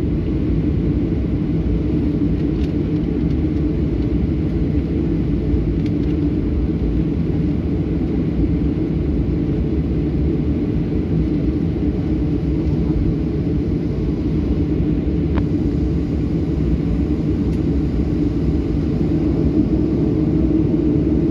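Steady low rumble inside the cabin of a Boeing 737-800 taxiing after landing: its CFM56 engines running at taxi power as the aircraft rolls along the taxiway.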